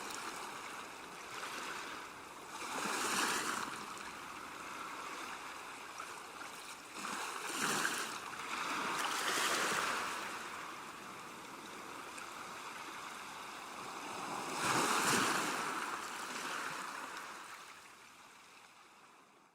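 Sea waves washing in: a steady surf hiss that swells louder about four times as waves break, then fades out near the end.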